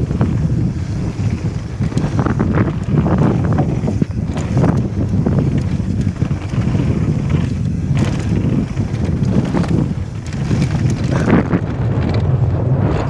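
Wind noise on a helmet-mounted action camera's microphone as a mountain bike descends a rough dirt trail at speed. Scattered short knocks and rattles come from the bike over bumps.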